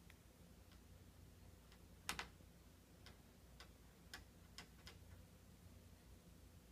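Near silence with a few faint, sharp clicks: a slightly louder one about two seconds in, then five more spread over the next three seconds.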